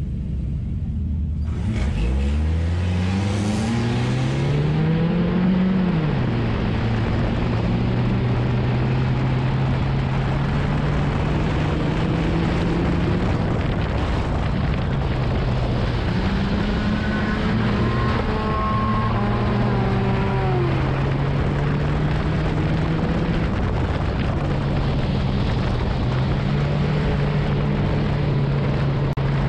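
Nissan enduro race car's engine heard from inside the cockpit while racing on a dirt track. It is quieter at first, then revs up hard about two seconds in, climbs in pitch and drops back near six seconds. After that it holds a steady pitch with small rises and falls as the throttle changes.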